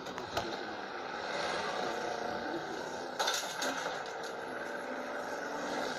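Car engine running and tyres on the road in a film car chase, played through a television speaker. A short, loud clatter comes about three seconds in.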